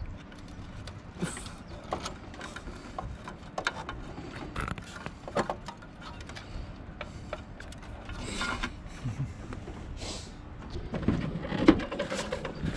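Small clicks and rustles of wires and plastic parts being handled inside the plastic lamp housing of a berth supply pillar, with a few louder knocks near the end as the housing is handled.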